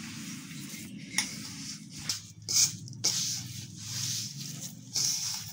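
Hand kneading crumbly flour-and-ghee dough in a steel plate: repeated soft rustling and squishing as the dough is pressed and pushed around, with a few sharper scrapes.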